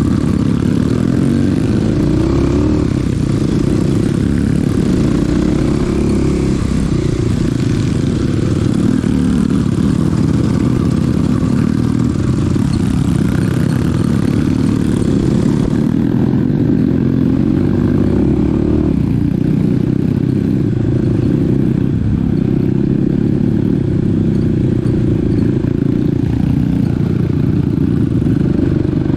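Small dirt bike's engine running steadily as it is ridden along a rough trail. Its pitch rises and falls a little with the throttle, and there is some rattling clatter.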